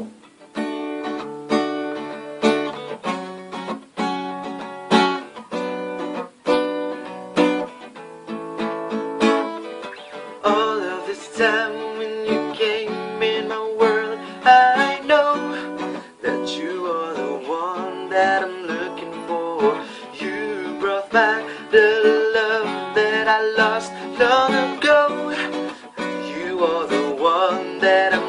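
Intro song with strummed acoustic guitar chords; a sung melody comes in about ten seconds in.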